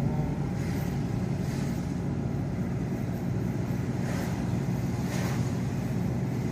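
A car driving on a rain-wet road, heard from inside the cabin: a steady low engine and road hum, with a few brief tyre-on-water swishes.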